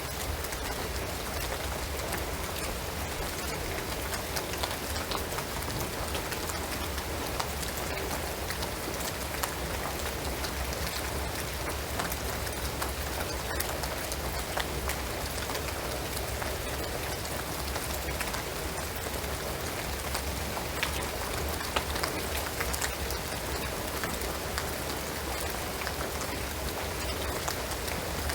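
Steady rain falling on a shingled roof and pine trees: an even hiss with many scattered sharp drip ticks, over a low steady rumble.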